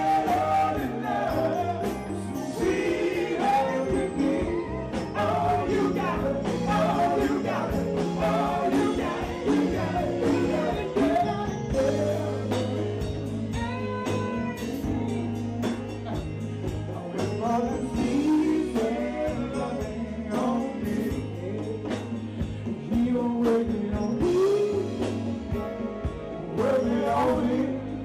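Live band music with a man singing lead into a microphone, backed by keyboard, drums and congas.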